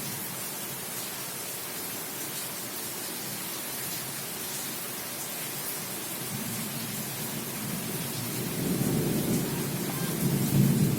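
Repaired electric fan running at high speed: a steady rush of air on the microphone that swells into a louder, rumbling buffet over the last few seconds, then cuts off abruptly.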